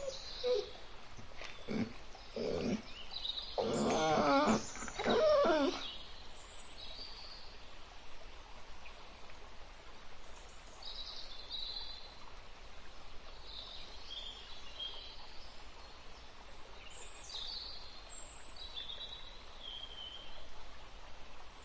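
Red foxes calling: a few short cries, then two longer calls with a wavering pitch about four to six seconds in. After that only faint high bird chirps now and then.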